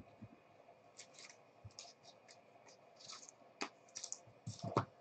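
Thin clear plastic card sleeve being handled as a trading card is slid into it: a run of small crisp clicks and crackles, sparse at first, coming faster and louder near the end.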